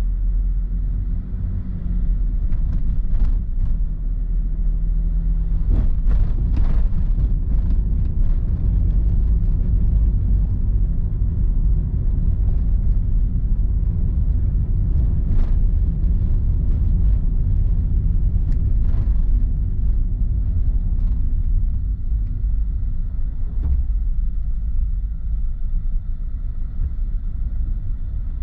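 Steady low rumble of a car driving, road and engine noise heard inside the cabin through a dashboard camera, with a few faint clicks.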